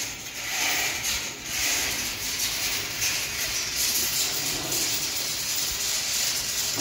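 Steady hiss of industrial background noise in a large factory hall.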